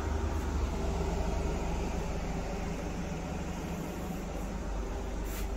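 Steady low rumble and hum inside an Indian Railways first-class sleeper coach.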